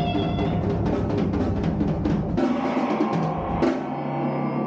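Rock power trio of drum kit, electric guitar and bass playing a psychedelic jam: a busy run of drum strokes, then about two and a half seconds in the drums thin out under held guitar and bass notes, with one sharp hit a second later.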